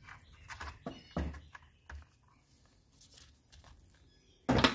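Handling noises from a plastic sun-visor mirror assembly and small hand tools on a towel-covered workbench: a few sharp clicks and taps in the first two seconds, then a louder knock just before the end.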